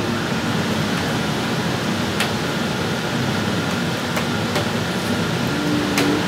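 High-pressure water spraying steadily from a self-serve car wash wand, with a few sharp clicks.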